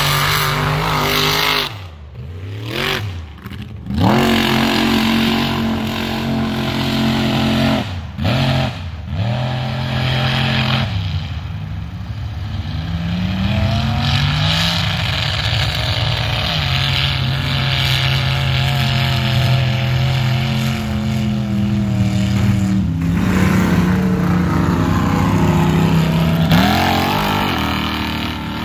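Supercharged mega truck engine revving hard through a mud bog, its pitch climbing and falling again and again, with brief drops in revs a few seconds in. The blower engine is running strong and well tuned.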